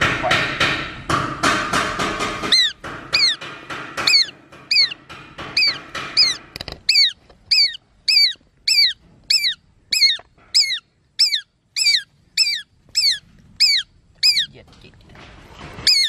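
Music with a beat for the first couple of seconds, then a shikra calling: a long, fast series of shrill notes, each sliding downward, about two and a half a second, stopping a second or so before the end.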